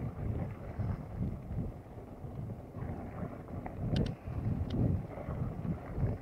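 Wind buffeting the microphone over the uneven low rumble of a mountain bike rolling fast down a dirt forest trail. A few sharp clicks and rattles come about four seconds in.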